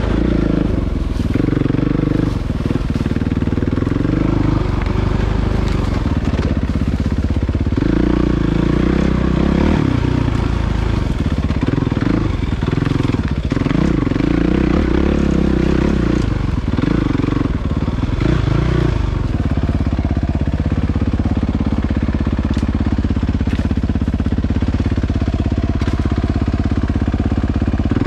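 Suzuki RMX450Z dirt bike's single-cylinder four-stroke engine running under way, its note rising and falling with the throttle.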